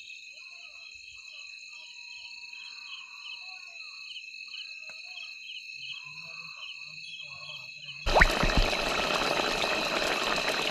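Night chorus of insects and frogs: several steady high-pitched trills with a rhythmic chirp about twice a second and scattered low croaks. About eight seconds in, a much louder steady hissing noise starts suddenly.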